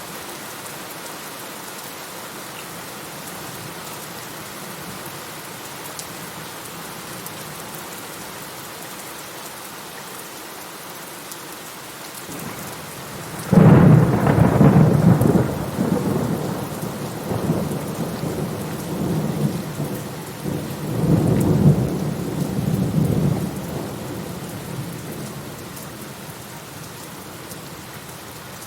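Steady rain falling, with a sudden loud clap of thunder about halfway through that rolls on in several rumbling swells for about ten seconds before fading back under the rain.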